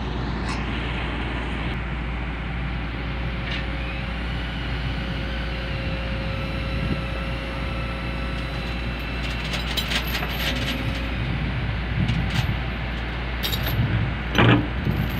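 Heavy diesel machinery running steadily: the Kobelco SK200-10 excavator standing loaded on a self-loader truck, with the truck alongside it. A faint thin whine runs through the middle, and a few sharp clicks and knocks come near the end, with one brief louder sound just before it ends.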